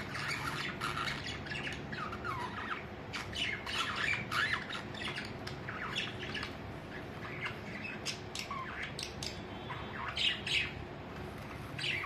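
Several pet budgerigars chattering in a cage: many short chirps and squawks overlapping, busiest a few seconds in and loudest near the end.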